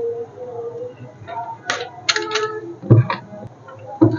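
Irregular clicks, taps and knocks of small parts and tools being handled while a blender's power cord is fitted, with a heavier knock about three seconds in and another near the end.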